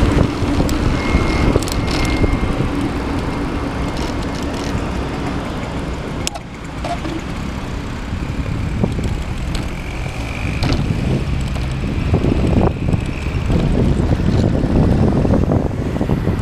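Road traffic at a junction: cars and a truck running close by, heard from a moving bicycle, with a steady low hum in the first few seconds.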